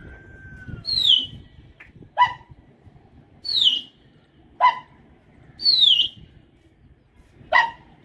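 A dog barking, three short sharp yelps spaced two to three seconds apart, with high whistles falling in pitch between them.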